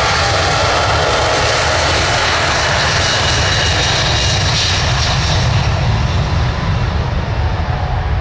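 Douglas DC-8-72's four CFM56 turbofan engines at takeoff power on the takeoff roll: a loud steady roar with a fan whine that fades in the first couple of seconds. The roar is loudest about five to six seconds in, then begins to fall away as the jet moves off.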